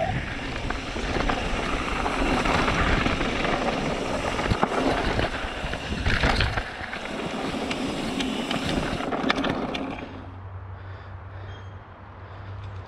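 Mountain bike riding fast down a dry dirt trail: wind rushing over the camera microphone, tyres crunching on dirt and the bike rattling over small rocks. About ten seconds in the noise drops away as the bike stops, leaving a low steady hum and a few faint chirps.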